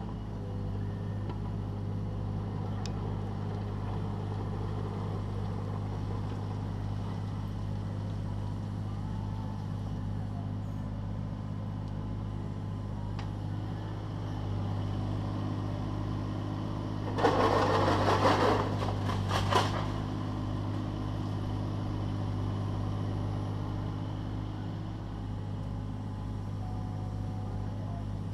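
Takeuchi TB216 mini digger's diesel engine running steadily under hydraulic work. About two-thirds of the way in comes a few seconds of loud scraping and clatter as the bucket works the stone, ending with a sharp knock.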